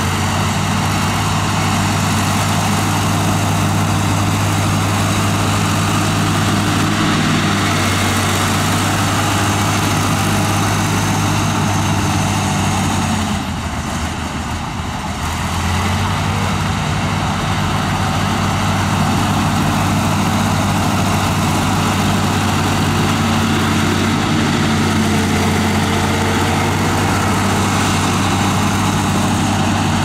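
Komatsu bulldozer's diesel engine running steadily, its note easing briefly about halfway before picking up again.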